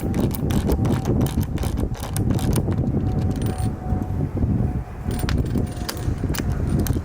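Ratchet wrench clicking in quick, uneven runs, with a short pause about four seconds in, as a bolt is backed out of a freshly set expanding roof-rack insert.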